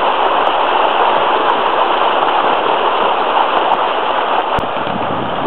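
Water escaping from a burst water main rushing steadily down a roadside ditch, a continuous loud torrent.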